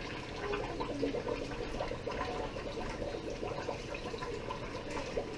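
A tortilla deep-frying in a pot of hot oil, the oil sizzling and bubbling steadily with fine crackles.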